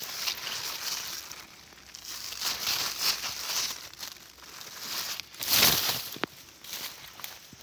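Irregular rustling and crinkling, loudest in a burst a little before six seconds in, followed by a short click.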